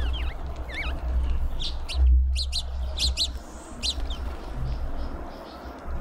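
Small birds at a garden feeder chirping: a few wavering high notes in the first second, then a quick run of short, sharp chirps through the middle, over a low steady rumble.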